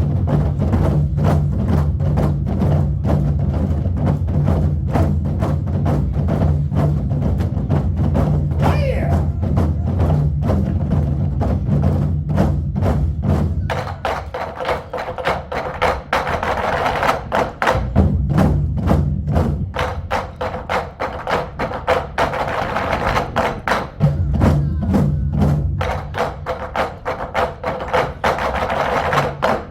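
Group drumming on Korean drums: many rapid, evenly spaced strikes over a backing track with a steady low bass line. The bass drops out for several seconds around the middle.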